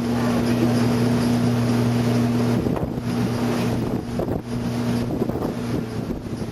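Speedboat engine running with a steady drone, under rushing water and wind buffeting the microphone. About two and a half seconds in, the engine tone breaks off and comes back a few times.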